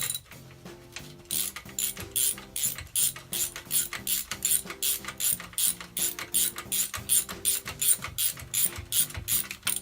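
Hand ratchet wrench clicking in quick, even strokes, about four a second, as a bolt is spun off. The clicking starts about a second in.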